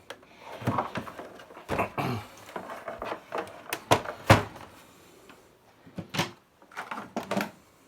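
Scattered knocks and clicks of a plastic dot-matrix printer being handled and turned over, with the two sharpest knocks a little after the middle.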